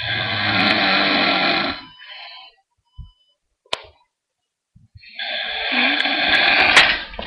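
A sleeping person snoring loudly: two long, rough snores about five seconds apart, with a short click between them.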